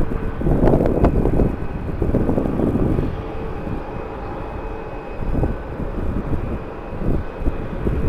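Distant jet airliner engines running with a steady whine, under gusts of strong wind buffeting the microphone. The gusts are strongest in the first few seconds.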